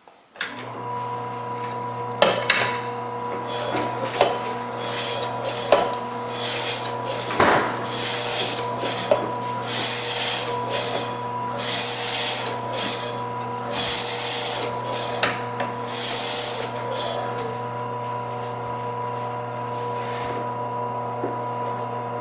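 KWS 320-watt 10-inch electric meat slicer: the motor starts with a steady hum about half a second in, and the spinning blade rasps through semi-frozen chicken breast as the carriage is pushed through, about once a second. The slicing stops around 17 seconds in, and the motor runs on alone.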